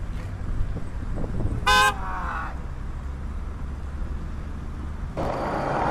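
A car horn gives one short toot about two seconds in, over a steady low rumble of traffic. Near the end a louder steady rushing noise takes over.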